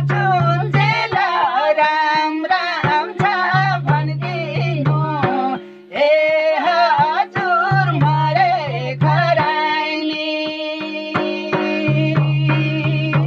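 Nepali folk song: a man and a woman singing to a madal barrel drum, its strokes and low ringing tones under the voices, with a brief break about six seconds in.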